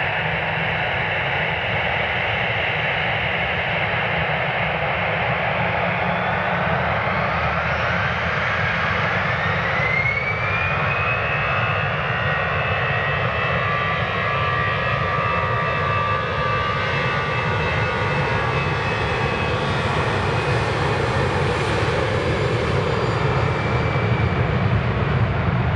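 Airbus A321 twin turbofan engines spooling up to takeoff thrust on the runway. A whine rises steadily over several seconds, then holds at a high pitch over a continuous low rumble that grows a little louder near the end.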